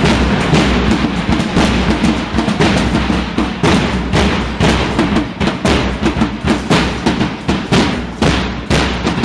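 Several large bass drums beaten with mallets in fast, continuous strokes.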